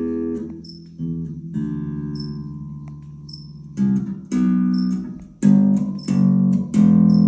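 Electric bass played with the fingers through an amplifier: single notes plucked one at a time and left to ring, about seven in all, in a slow, halting run of the E minor scale.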